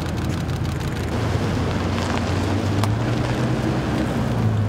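A car engine running with a low steady hum as the sedan moves off, with a few faint clicks.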